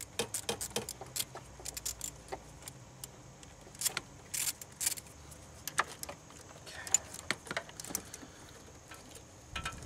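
Irregular light metallic clicks and clinks with a few short scraping rustles, from gloved hands working at a car battery's terminals and cables under the hood.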